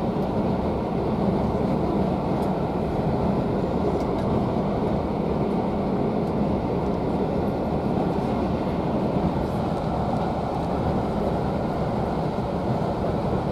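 Steady rumble of a railway passenger carriage running at speed, heard from inside the coach: wheels on the rails and the body of the carriage, even and unbroken.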